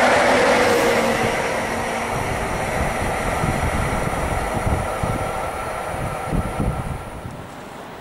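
Rear of a freight train passing close and running away: the red ÖBB Taurus electric locomotive at its tail goes by, then the sound of wheels on rail fades steadily. About seven seconds in it drops to a quieter background.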